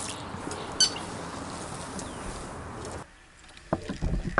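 A steady rushing background noise with a single sharp click about a second in. After a brief drop in level near the end, a few knocks and rustles follow as fishing gear is handled in a kayak.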